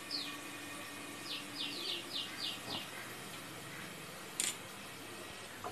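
A small bird chirping in the background: quick, short falling chirps, one at the start and then a run of about six in a row between one and three seconds in. They sound over the faint steady sizzle of vegetables cooking in a lidded pan, with a single short click about four seconds in.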